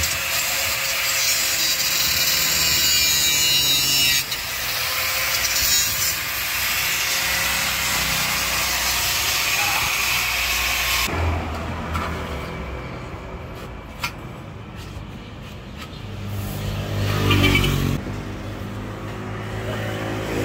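Utility knife slicing through a thick rubber floor mat along a steel straightedge, a long continuous scraping rasp with a short break about four seconds in. It stops abruptly about eleven seconds in, giving way to quieter roadside traffic rumble.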